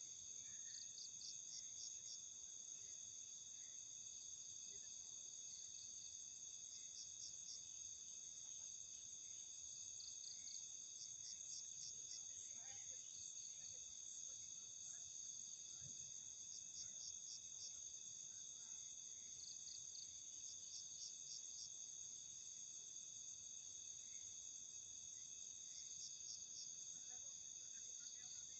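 Night chorus of crickets and other insects: several steady high-pitched trills, with short groups of quick pulsed chirps coming in every few seconds.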